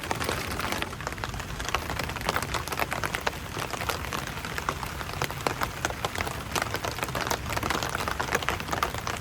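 Steady monsoon rain falling, with many separate drops hitting close by.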